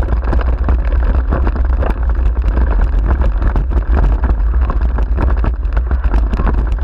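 A dog-drawn wheeled rig rolling fast over a rough grass track: constant clattering and rattling of the frame and wheels over a deep rumble, with wind buffeting the microphone.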